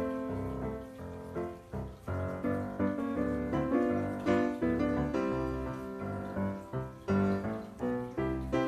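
Background piano music, a run of sustained notes and chords.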